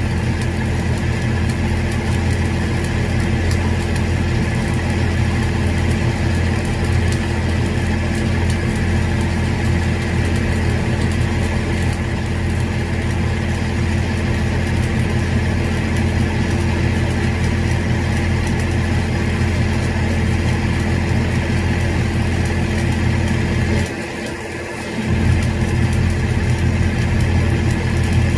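Stick (shielded metal arc) welding with a 7018 rod on steel pipe: the arc sizzles steadily over the steady hum of an engine running. About 24 seconds in, the low hum drops for about a second, then comes back.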